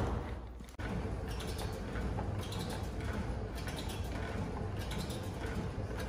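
The first second holds the fading tail of a loud thud. After that comes a Precor elliptical trainer in use: a steady mechanical whir with faint, repeated clicks from its moving parts.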